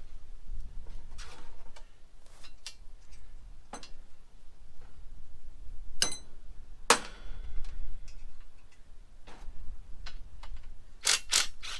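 Irregular sharp metal clinks and taps of hand tools and loose metal parts while a bolted scrap rabbit-cage table is taken apart. The loudest clink, about seven seconds in, rings briefly, and two come close together near the end.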